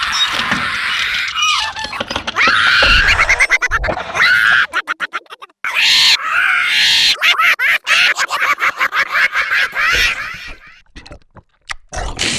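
Gremlin creature sound effect: high-pitched squeals, chattering and grunts with rapid stuttering clicks, breaking off briefly about five seconds in and thinning out near the end.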